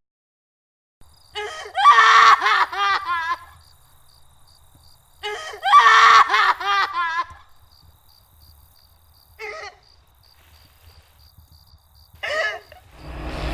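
A young woman screaming in two long, wavering bouts, then two short cries, over crickets chirping steadily. A low rumble starts near the end.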